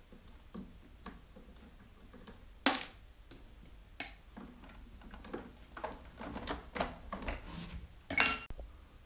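Scattered clicks and knocks of plastic tiller panels, screws and hand tools being handled as a mobility scooter's tiller is taken apart. A sharp knock comes nearly three seconds in, a run of smaller clicks follows, and a metallic clink with a brief ring comes about eight seconds in.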